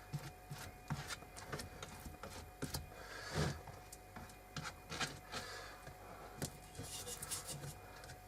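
Scattered light clicks, taps and rubbing from hands handling the bird table's roof pieces and materials, with a louder scrape about three and a half seconds in.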